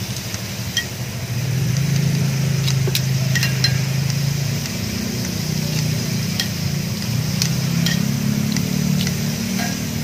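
Scissors and metal tongs clicking and clinking now and then against a cast-iron sizzling plate as chicken is cut up and turned. Under them runs a steady low engine drone.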